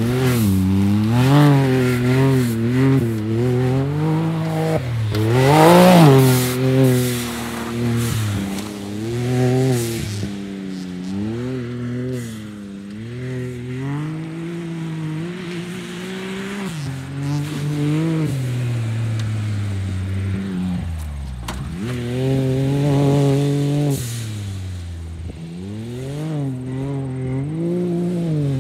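Can-Am Maverick X3 side-by-side's three-cylinder engine revving hard on and off the throttle through the corners of a dirt track. The revs climb and fall again and again, loudest about six seconds in, dropping low just past twenty seconds before climbing once more.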